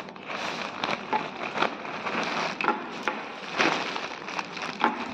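Plastic poly mailer bag crinkling and rustling as it is handled, with irregular sharp crackles.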